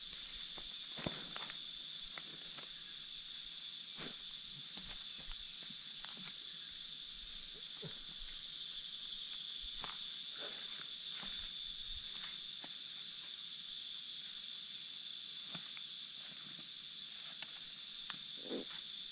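A chorus of insects keeps up a steady, high-pitched drone throughout. Scattered faint taps and knocks sound beneath it.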